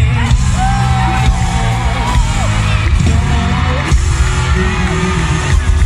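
Live pop song over a PA system, a male voice singing a melody over a heavy, bass-driven backing, picked up from within the crowd.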